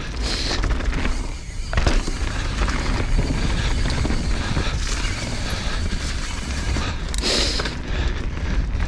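Mountain bike (Evil Insurgent MX) riding down rocky dirt singletrack: tyres rolling over dirt and stones, the bike rattling with many sharp knocks over rocks and roots, and wind buffeting the microphone as a heavy steady rumble.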